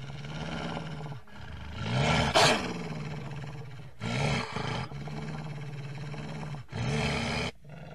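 Sound effect of wolves growling: a continuous low growl broken by three louder snarls, about two, four and seven seconds in.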